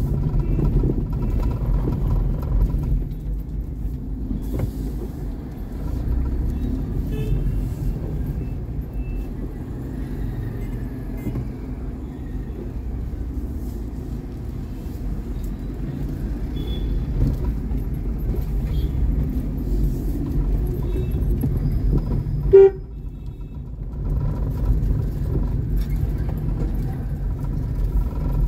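Steady low rumble of a moving road vehicle, with short horn-like toots from traffic. About 22 seconds in, a brief, sharp, loud sound stands out.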